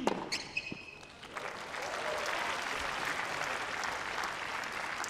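Tennis crowd applauding a won point, building up about a second in and then holding steady.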